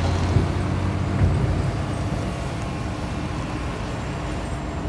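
Crawler excavator's diesel engine running under load, a deep drone that eases off about a second in, with a couple of short knocks; steady engine noise continues after that.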